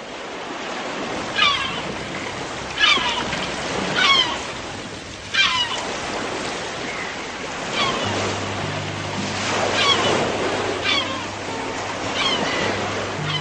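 Sea waves washing with a steady rush. Over them, a short high call that falls in pitch repeats about every second or two.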